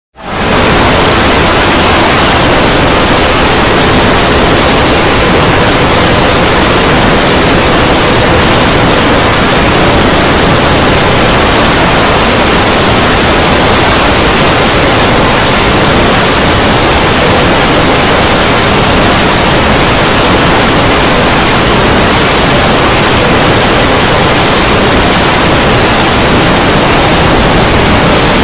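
Loud, steady wall of noise like static, made by hundreds of layered video soundtracks playing at once and blurring together. It comes up within the first half second and holds level throughout.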